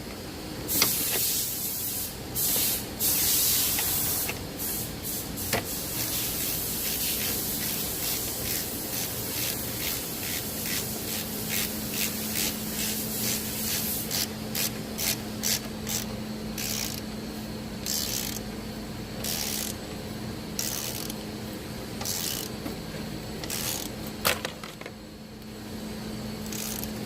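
Ratchet wrench working a strut bolt: a run of quick, raspy ratcheting strokes, some long and some short, that tighten the bolt.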